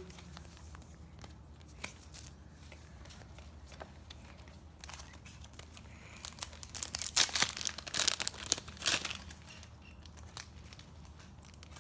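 Foil wrapper of a Match Attax trading-card pack crinkling and tearing open, a cluster of loud rustles from about six to nine and a half seconds in, with faint card handling before it.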